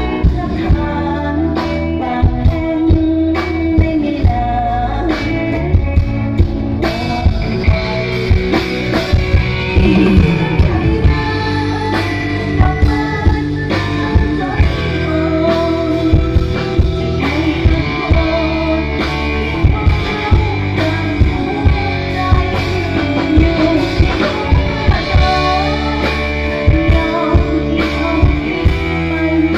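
Live band playing through a loud PA system: a drum kit keeping a steady beat under bass, electric guitar and keyboard, with a woman singing.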